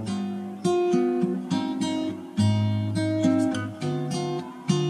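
Background music on acoustic guitar: plucked notes and chords following one another in a slow melody.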